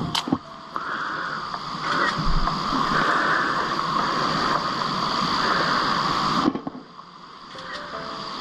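Water splashing and lapping around a canoe on a lake as it is paddled. The steady noise drops away sharply about six and a half seconds in, then slowly comes back.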